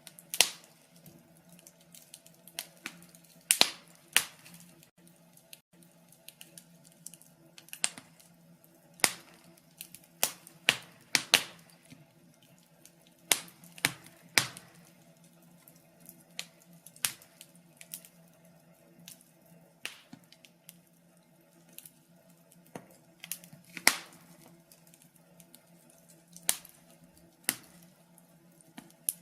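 Wood fire in a fireplace crackling: irregular sharp snaps and pops, a few every second or two, over a faint steady low hum.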